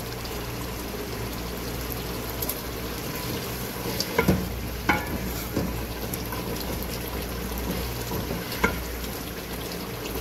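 Mash daal frying and bubbling in an aluminium pot over a gas flame as it is stirred, being browned (bhunai) until thick. The spoon scrapes and knocks against the pot a few times, loudest about four and five seconds in and once more near the end.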